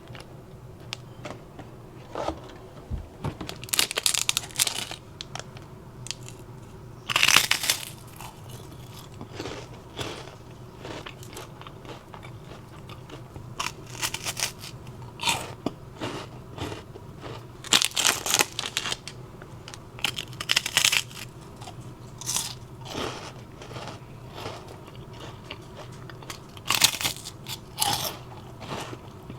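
Crisp cookies being bitten and chewed close to the microphone: irregular clusters of crackly crunches, with the loudest bites about a quarter of the way in, just past the middle, and near the end, over a faint steady low hum.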